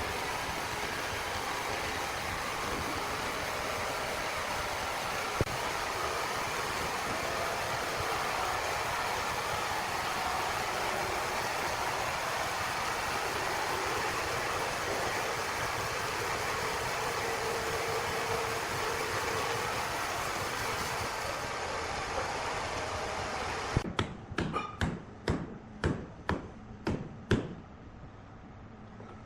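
Heavy wood-processing machinery running with a steady, noisy din. Near the end it gives way to a quieter background with a run of sharp knocks, about two a second.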